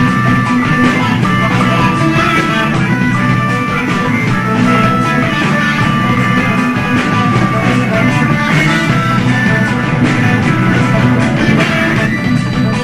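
Live rock band playing: electric guitar holding sustained, drawn-out notes over drums and cymbals.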